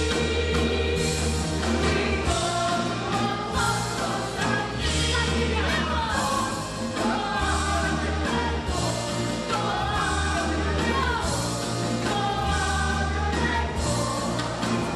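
Musical-theatre cast singing together over a band with a heavy, pulsing bass line.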